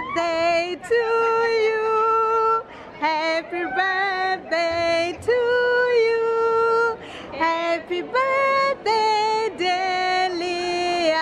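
A woman singing a slow melody in long held notes.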